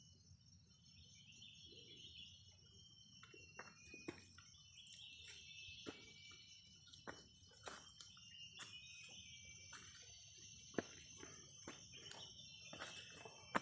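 Faint tropical rainforest ambience: a steady high-pitched insect chorus with bird calls. Scattered sharp clicks and crackles come in from a few seconds in, growing more frequent.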